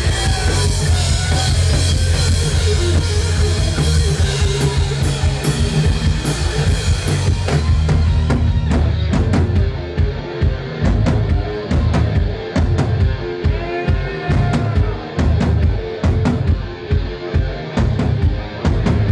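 Live rock band playing loud with distorted electric guitars, bass and a drum kit. About halfway through, the guitars and cymbals drop back and the drums come to the front with hard, evenly spaced hits.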